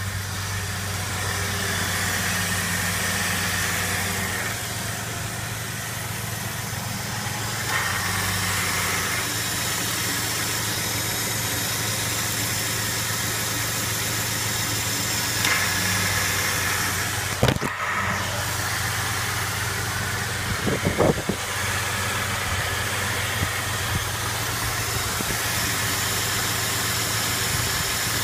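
Jeep engine idling steadily, heard up close at the front of the engine where the serpentine belt runs over its pulleys. There is a sharp click about two-thirds of the way through and a short cluster of clicks a few seconds later.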